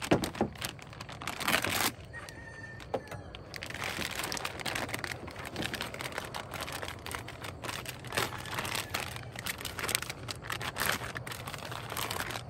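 Plastic packaging bag crinkling and rustling as it is cut open and unwrapped by hand, in irregular crackles, with a louder rustle about a second and a half in.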